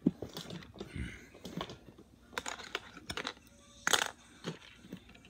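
Plastic LEGO pieces clicking and knocking as they are handled and pressed together: a string of short, sharp clicks at irregular intervals, the loudest right at the start.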